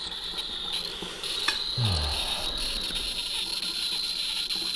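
Handheld wine aerator hissing steadily as red wine is poured through it under pressure, drawing in air to aerate the wine as it runs into a decanter. The hiss is high-pitched and grows louder about a second in.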